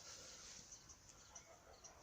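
Birds chirping faintly: a few short, high notes in quick succession.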